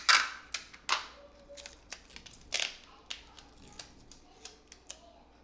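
Irregular clicks, scrapes and rustles of objects being handled at a table, the strongest right at the start, about a second in and about two and a half seconds in, with lighter ticks after.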